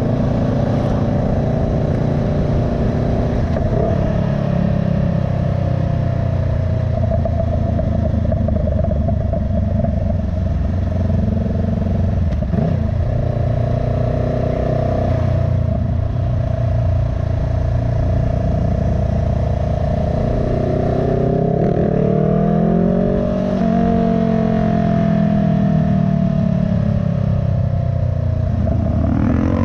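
Vehicle engine running with exhaust pops and crackles: a steady drone with a few sharp pops, revved up and back down a little past twenty seconds and rising again near the end.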